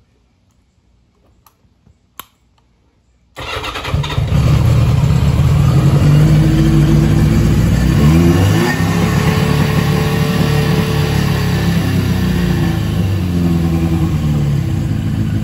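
Yamaha XJ750 Seca's air-cooled inline-four engine, after a few faint clicks, comes in abruptly about three seconds in, revs briefly and settles into a steady idle. It is running smoothly after its carburettor bowls were soaked with Seafoam, where before it would only run on starter fluid.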